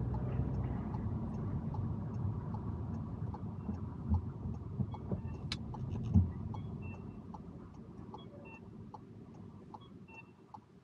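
Car road and engine rumble that dies down over the second half as the car slows to a stop, with two low thumps about four and six seconds in, the second the loudest. A faint, regular ticking runs underneath.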